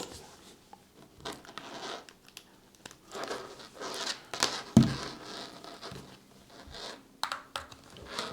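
Rustling and handling noise from the cordless screwdriver and its USB-C charging cable as the cable is plugged into the port, with scattered small clicks and one sharper knock about five seconds in.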